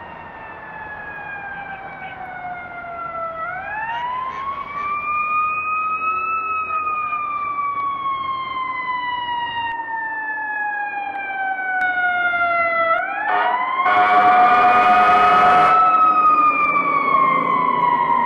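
Fire truck siren in a slow wail: it winds up in pitch over a few seconds, then falls slowly, twice, growing louder as the truck approaches. Near the top of the second rise a loud horn blast of about two seconds sounds over it.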